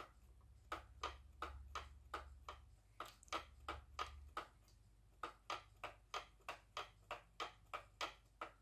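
Flapper mechanism of a small motor-driven, 3D-printed model paddle boat, its grey tail arm flipping back and forth and making faint, regular clicks about four times a second. A low hum runs under the clicks and fades out a little under halfway.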